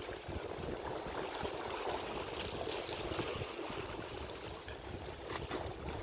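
Small sea waves lapping and splashing against shoreline rocks, with a few sharper splashes about five seconds in.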